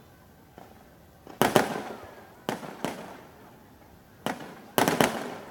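Aerial fireworks bursting overhead: about seven sharp bangs in irregular pairs and clusters, the first about one and a half seconds in and the loudest near the end, each trailing off in a short echo.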